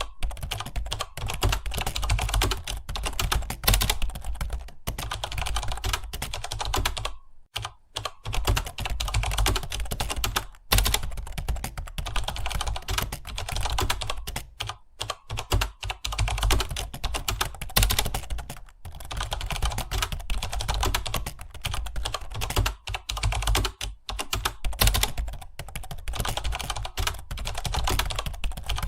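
Fast, continuous typing on a computer keyboard, a dense stream of keystrokes broken by short pauses about seven and fifteen seconds in.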